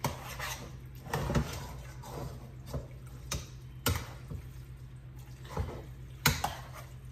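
A spoon stirring ground-meat Sloppy Joe mix in a stainless steel pot, scraping the pot and knocking against its side in irregular strokes, over a steady low hum.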